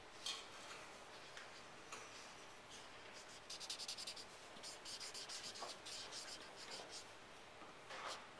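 Marker scribbling on paper: a Staedtler felt-tip rubbed back and forth to fill in a dark area. A few separate strokes come early on, then from about three seconds in a quick run of scratchy strokes that eases off near the end.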